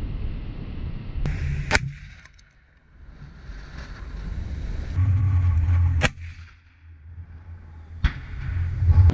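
Sharp distant bangs of AT4 anti-tank rocket fire, three of them, about two, six and eight seconds in, over low wind rumble on the microphone.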